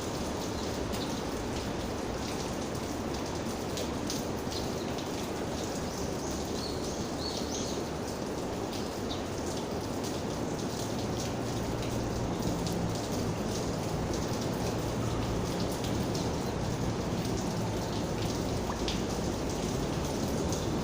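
Steady rain falling, with many individual raindrops ticking on a surface.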